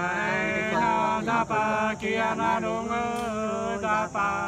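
Two men singing Nùng sli, a folk love-song duet, unaccompanied, in long drawn-out notes that glide slowly between pitches.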